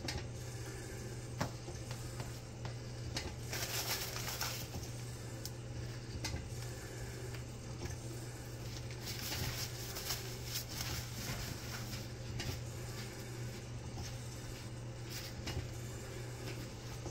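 Small handling sounds at a lab counter: a glass microscope slide clicking against the countertop and a paper tissue rustling as the slide is wiped, twice in longer stretches. Under them runs a steady low hum of lab equipment.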